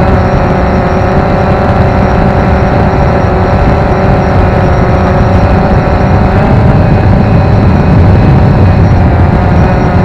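Multirotor drone in flight, heard up close from a camera mounted on the drone itself: the motors and propellers give a loud, steady buzz of several held pitches over a low rumble.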